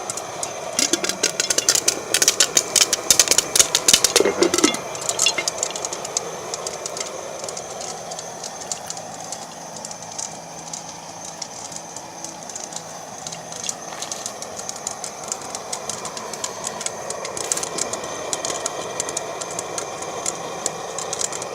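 Popcorn kernels popping in hot bacon grease in a pressure cooker pot, a dense rapid crackle for the first few seconds that thins to scattered pops, over the steady rush of an LP gas burner.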